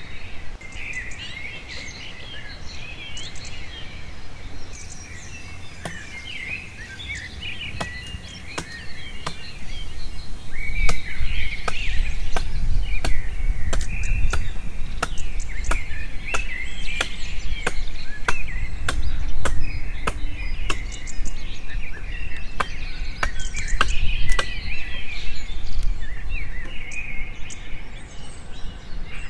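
Machete chopping and shaving a wooden plank: a quick, irregular series of sharp strikes from about five seconds in until near the end. Birds chirp throughout.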